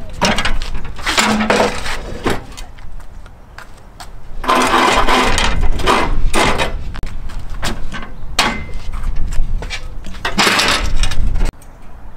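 Metal folding wheelchair ramp clattering and scraping as it is set down from a van's side door onto concrete and unfolded, in several loud spells of rattling and scraping. The noise cuts off suddenly near the end.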